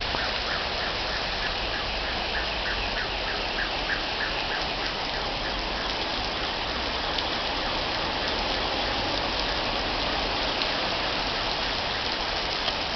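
Heavy rain pouring down onto the pavement, road and cars in a steady, even hiss. For the first five seconds or so, a short high chirp repeats about three times a second over it.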